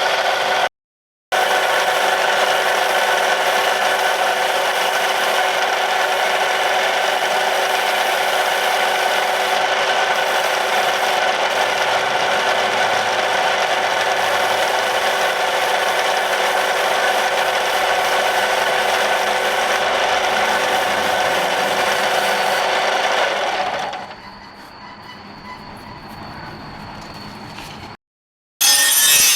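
A power tool running steadily as it works material, a dense rubbing noise over a steady hum of several tones. About 23 seconds in it gives way to a much quieter sound with a faint high whine.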